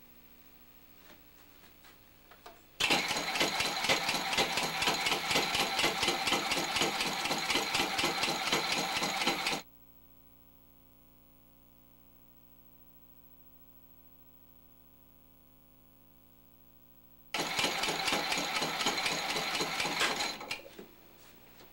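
Inertial propulsion engine, a modified Dean drive, with its shifters running: a loud, fast, even mechanical clatter. It starts about three seconds in and lasts about seven seconds, drops to a low steady hum, then returns for about three seconds near the end.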